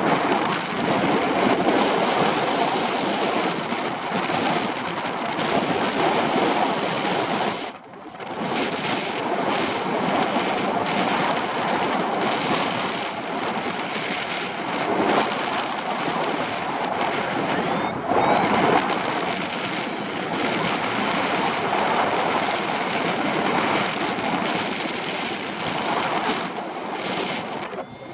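Wind buffeting the microphone of a paraglider pilot's camera in flight: a loud, steady rush of air with a short lull about eight seconds in.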